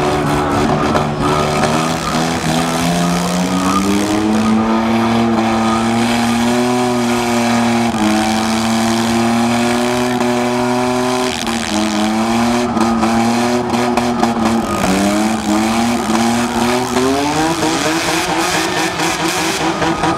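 Demolition derby car's engine revving hard and held at high revs, its pitch dropping sharply twice, about halfway and about three quarters through, then climbing again near the end, with tires spinning and squealing in the dirt.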